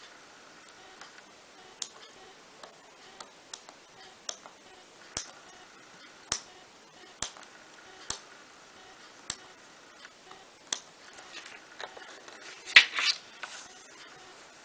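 Small pointed parchment-craft scissors snipping out perforations in parchment paper, one short click at a time, roughly one snip a second. A louder burst of crackling noise comes near the end.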